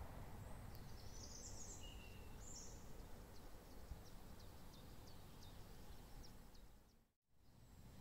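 Faint outdoor background noise with a few short high bird chirps and then a run of quick high ticks; the sound drops out to silence for a moment about seven seconds in.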